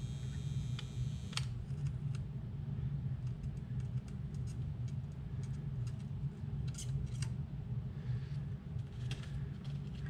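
Weller soldering gun held on an XT90 connector terminal while a battery wire is soldered, with a steady low hum throughout and scattered small clicks and ticks from handling the wire and connector. A few high steady tones cut off with a click about one and a half seconds in.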